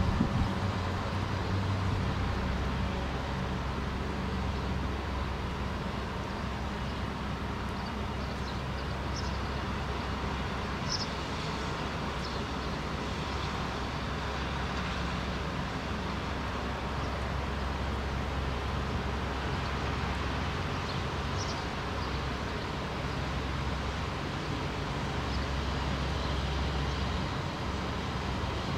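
Steady city traffic noise, with a few faint, short high chirps scattered through.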